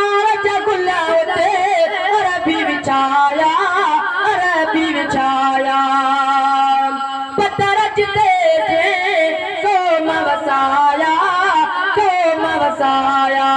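A boy singing a Sindhi naat (molood) into a microphone: a high, heavily ornamented melody with wavering runs, over steady held notes. The singing breaks briefly about seven seconds in.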